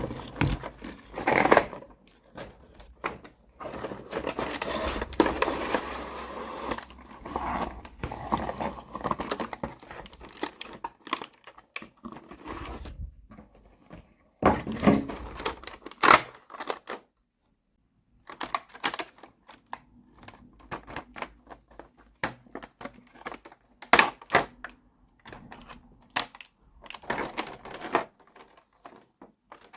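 Crinkling of plastic packaging and sharp clicks of small plastic toy pieces being unpacked and handled, in irregular bursts.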